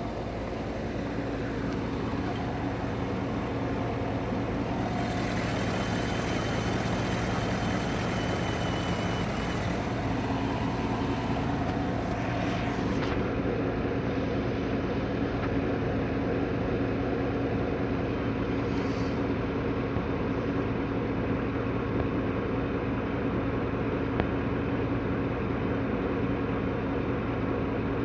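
Chevrolet Silverado engine idling steadily and evenly, with no misfire now that the fuel injectors for cylinders 1 and 6 are new. A high hiss sits over it for several seconds in the first half.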